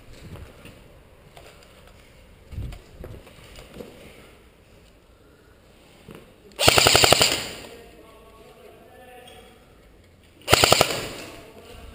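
Classic Army M16A3 airsoft electric gun firing two short full-auto bursts, each a rapid string of clicks lasting under a second, about four seconds apart. The first burst leaves a short fading echo.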